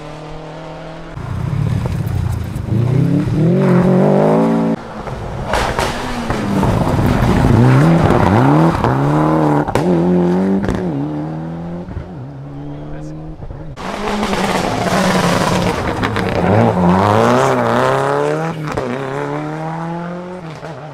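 Rally car engines revving hard through the gears. The pitch climbs and then drops sharply at each gear change, loudest a few seconds in and again in the second half.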